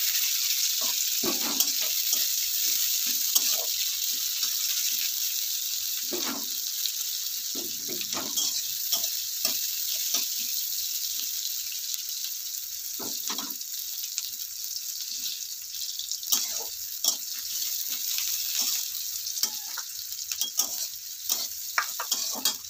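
Chopped onions frying in hot oil in a kadai: a steady sizzle, with frequent scrapes and taps as a metal spatula stirs them against the pan.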